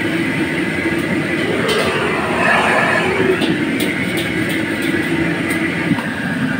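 A commercial wok range runs with a loud steady rush, and tap water runs beside it. Over this, a bamboo wok brush swishes and scrapes hot water around a carbon-steel wok, busiest in the first half, with a few sharp clicks later on.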